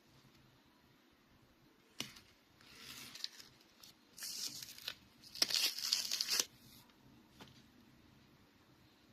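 Packaging being torn open and crinkled by hand. A sharp snap comes about two seconds in, followed by a few tearing, rustling bursts, the loudest a second or so past the middle.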